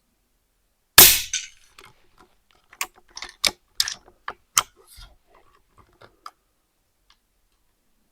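A single air rifle shot from an Altaros M24, a sharp crack about a second in. It is followed by a run of about a dozen sharp mechanical clicks and clacks over the next few seconds.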